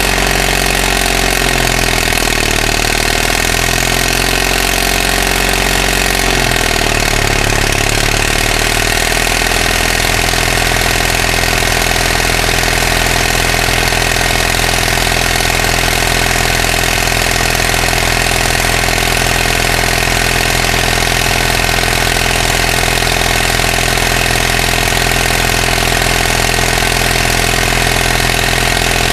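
Caterpillar D318 diesel engine of a Link-Belt Speeder LS-90 dragline running steadily on a cold start. Its note shifts during the first several seconds, then settles and holds steady.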